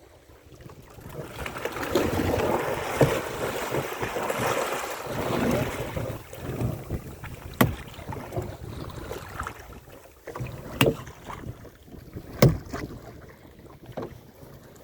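Wind buffeting the microphone and sea water rushing aboard a small fishing boat, loudest in the first half. There are several sharp knocks, the loudest near the end.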